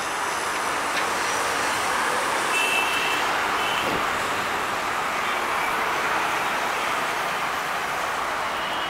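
Steady noise of busy road traffic, with motorbikes and cars passing, and a brief high-pitched tone about two and a half seconds in.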